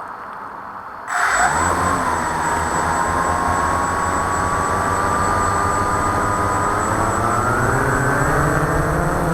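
Walkera QR X350 quadcopter's motors and propellers spinning up suddenly about a second in, then a steady high whine that dips briefly and climbs slowly in pitch near the end as the throttle rises.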